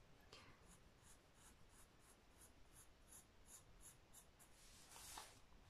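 Faint pencil scratching on squared notebook paper: quick short strokes, about four a second, as a drawn outline is gone over, with a slightly louder, longer scrape near the end.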